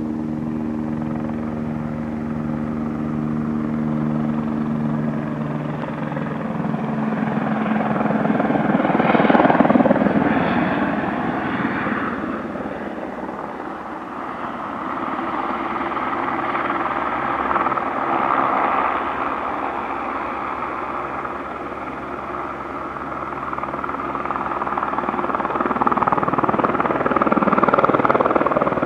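Aérospatiale AS 350 B Ecureuil single-engine turbine helicopter flying with a sling load on a long line. It starts as a steady hum with a clear pitch, then becomes a louder rush of rotor noise that swells about nine seconds in, eases, and swells again near the end as the helicopter comes close.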